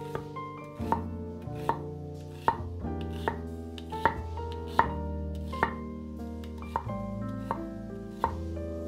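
Chef's knife slicing an onion on a wooden cutting board: steady, evenly spaced knocks of the blade against the board, a little more than one a second. Soft background music underneath.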